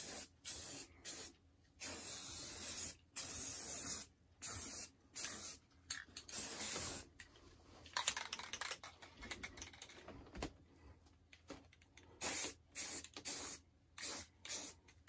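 Aerosol spray-paint can hissing in many short bursts, a few lasting a second or two, as model railroad track rails are sprayed. There is a quieter gap about halfway through before the short bursts resume.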